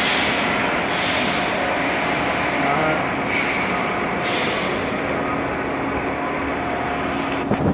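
A Dahlih bed-type milling machine's geared spindle head running steadily, a mechanical whir with a steady hum. There is a short knock near the end.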